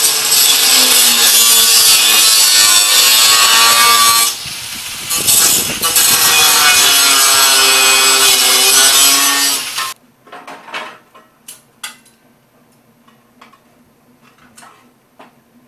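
A Northern Industrial 4-1/2" angle grinder cutting into a steel mower deck: a loud, continuous grinding whose motor pitch sags and recovers under load, easing off briefly about four seconds in. It stops abruptly about ten seconds in, leaving only faint scattered clicks.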